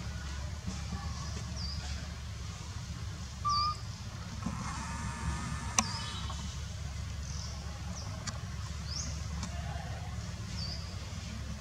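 Outdoor background: a steady low rumble with short high chirps repeating every second or so, a brief tone about three and a half seconds in, and a single sharp click near the middle.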